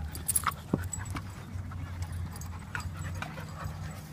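Dogs at play, with a scatter of short scuffles and knocks over a steady low hum.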